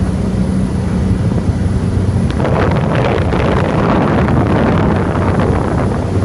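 Cessna Grand Caravan EX turboprop taking off: a steady low propeller drone, with a rushing noise building about two seconds in.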